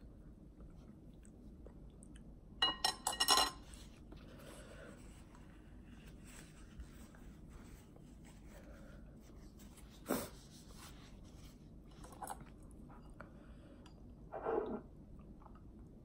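Close-miked mouth sounds of a person chewing spicy instant fire noodles, mostly faint. A cluster of crisp wet clicks comes about three seconds in, a single sharp click about ten seconds in, and a short louder burst near the end.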